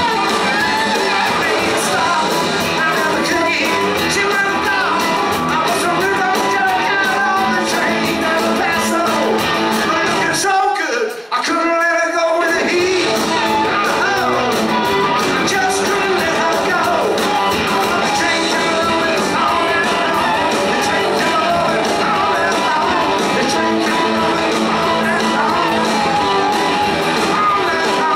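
Live rock band of electric guitars, electric bass and drums playing loudly with singing. About eleven seconds in, the bass and drums drop out for a second or two before the full band comes back in.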